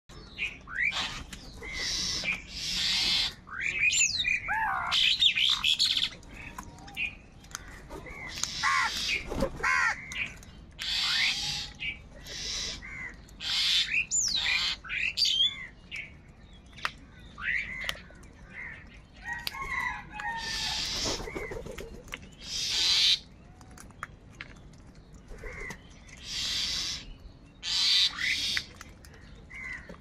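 House crows cawing over and over, harsh calls of about a second each that come in quick succession and overlap, mixed with the shorter whistled chirps of smaller birds.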